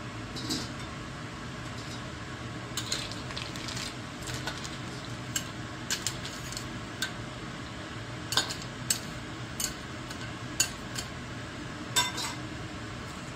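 A metal utensil stirring clams in a wok of boiling water: irregular sharp clinks of shells and metal against the pan, over a steady hiss.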